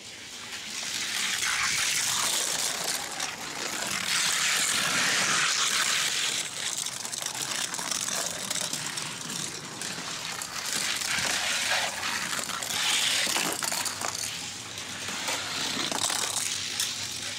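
Two Hot Wheels die-cast cars rolling down a gravity race track, their small wheels giving a steady rushing rattle with many little clicks, swelling and fading as they run along the course.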